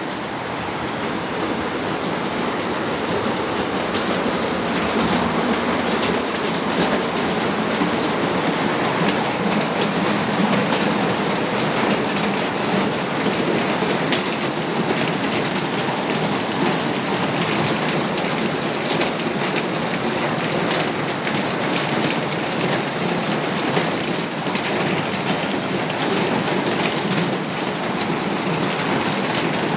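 Steady, loud rush of water without a break, with faint scattered pattering on top.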